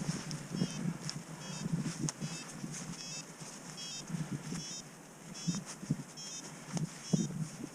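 Paragliding variometer beeping in short, quick repeated pips, the rising-and-falling tone a vario gives while the glider is climbing, over gusts of wind on the microphone.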